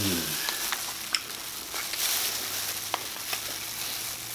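Close-miked sounds of eating and handling a seafood boil: king crab and lobster meat being pulled from the shell with plastic-gloved hands, with scattered shell clicks over a steady hiss. Someone gives a short low "mm" at the start.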